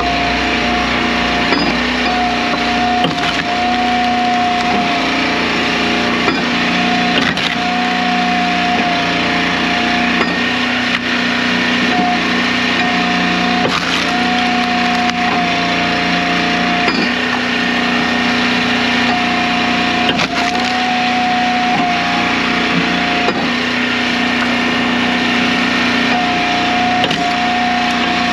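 Gas-engine hydraulic log splitter running steadily while firewood is forced through a four-way wedge, the engine hum broken by repeated sharp cracking and splintering of wood as pieces split apart.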